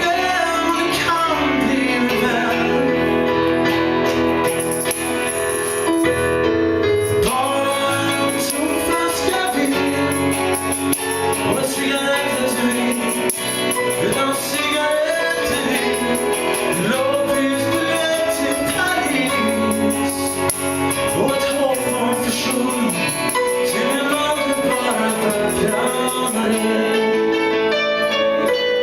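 A band playing a song live with singing. From about five seconds in, a steady high jingling percussion rhythm runs along with it.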